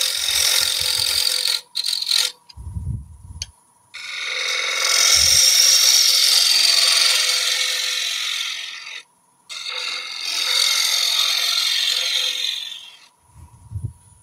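A woodturning tool cutting into spinning oak on a lathe: a scraping hiss as shavings come off, in three long passes with short pauses between them, the middle pass the loudest.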